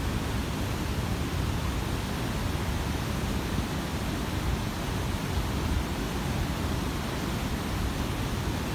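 Steady rushing noise of wind buffeting the phone's microphone, heaviest in the low end, with no distinct events.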